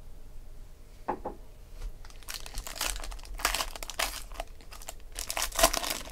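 Foil trading-card pack wrapper crinkling and tearing as it is ripped open by hand, in several crackly bursts that are loudest near the end. A short tap comes about a second in.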